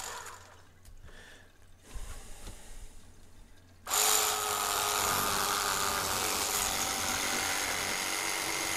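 Electric fillet knife winding down at the start, a few seconds of quiet with a small knock, then switched on again about four seconds in and running steadily with a high buzz while filleting crappie. It begins to wind down at the very end.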